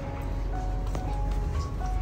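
Background music: a simple melody of clean held notes stepping up and down in pitch, over a steady low bass.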